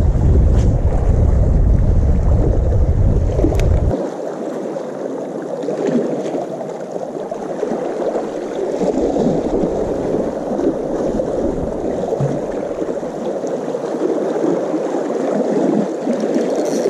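Wind rumbling on the microphone, cutting off abruptly about four seconds in, over a steady wash of sea water that carries on throughout.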